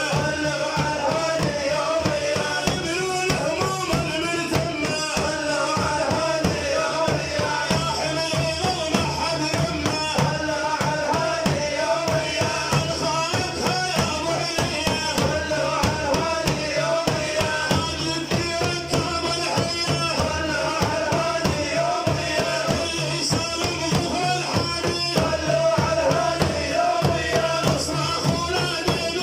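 Devotional religious music: fast, steady drumming with a chanting voice over it.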